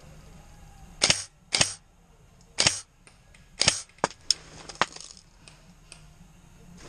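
Airsoft guns firing: about seven sharp shots, some in quick doubles, at uneven intervals over about four seconds.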